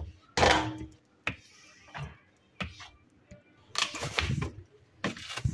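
Plastic baby feeding bottles and their parts being washed and handled in a stainless steel sink: a run of separate knocks, splashes and rustles with short pauses between them.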